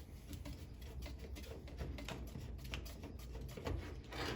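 Handling noise: scattered small clicks and taps of hoses and fittings being moved about, over a low steady rumble.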